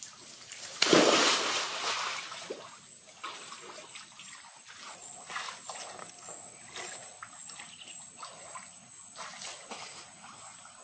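A person jumping into a pool of water: one big splash about a second in, then water splashing and sloshing as he swims. A thin, steady high-pitched whine runs underneath throughout.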